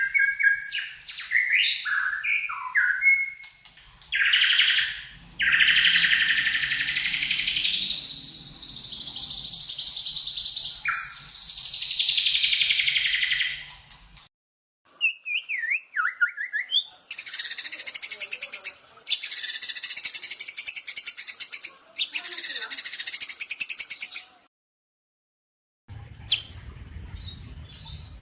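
Recorded songbird song, as used as tutor song for caged songbirds: rapid high chirps, long harsh buzzy phrases and fast rattling trills. The takes are spliced together with abrupt cuts and two short silences.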